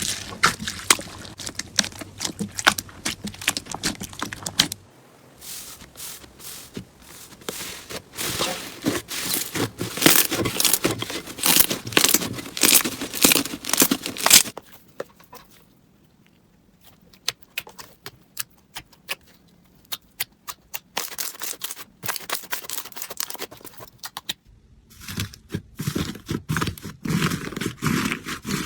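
Slime being squeezed and pressed by hand, giving dense crackling and popping. It changes abruptly a few times, with a quieter stretch of scattered pops in the middle.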